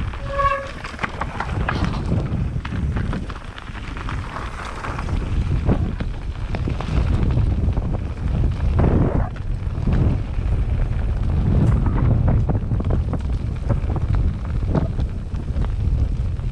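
Wind buffeting the ride camera's microphone over the rumble, rattles and knocks of a mountain bike riding down a rough dirt trail. A short squeak sounds about half a second in.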